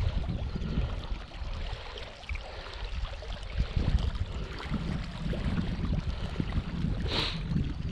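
Low, uneven rumbling of wind on the microphone with rustling handling noise. A short bright hiss comes about seven seconds in.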